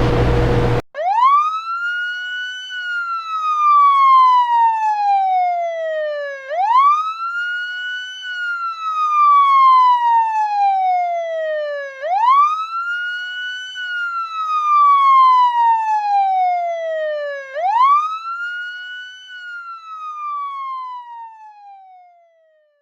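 Emergency vehicle siren wailing: four slow cycles, each a quick rise in pitch followed by a long falling glide, fading out near the end.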